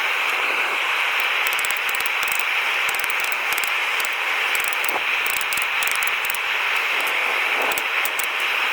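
A forge running with a steady hiss and faint crackling throughout.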